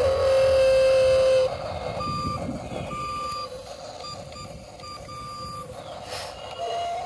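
Electronic sound effects from a toy remote-control excavator: a steady tone for about a second and a half, then a run of short, high beeps like a reversing alarm.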